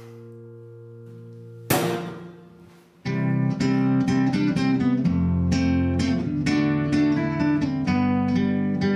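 A held chord, then about two seconds in a single guitar strum that rings and dies away. From about three seconds on, an acoustic guitar is picked in a quick run of single notes over bass notes.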